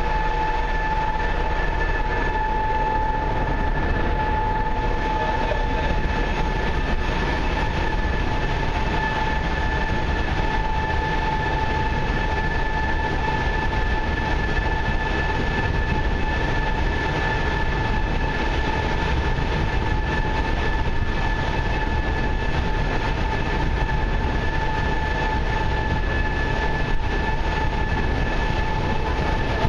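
Steady running noise of a paddle steamer under way: a low rumble of engine and paddles with a constant high whine, over water rushing along the hull.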